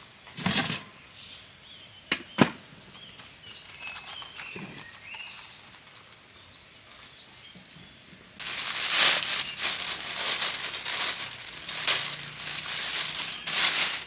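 Small birds chirping repeatedly over outdoor background, with a few sharp knocks from a plastic storage bin being moved. About eight seconds in this changes abruptly to loud, steady rustling and crinkling of a plastic bag being handled.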